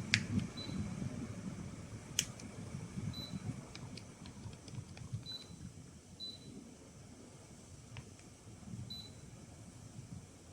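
Daikin FTC35NV14 split air conditioner giving about six short high beeps, spaced irregularly, typical of the indoor unit acknowledging remote-control button presses. A few sharp clicks and a run of small ticks come in between, over a low, uneven rumble.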